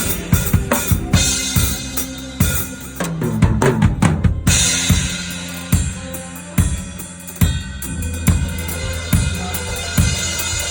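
Drum kit played up close in a full-band worship song: kick drum, snare and cymbals keeping the beat. About three seconds in there is a quick run of hits, and after it a sparser beat over the band's sustained low notes.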